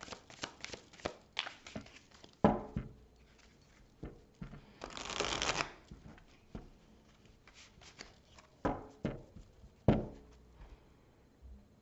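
A deck of tarot cards being shuffled by hand: a quick run of light flicks, a longer rustle about halfway, and a few louder taps of the cards.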